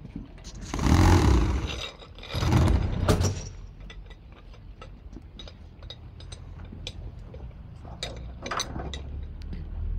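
Firefighting gear being handled at a fire truck: two loud rushing, scraping noises in the first three seconds or so, then scattered clicks and clanks of metal fittings.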